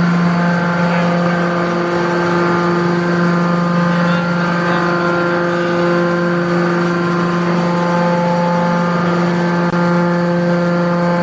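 Hydraulic baler's power unit running, its electric motor and hydraulic pump giving a steady, unbroken hum.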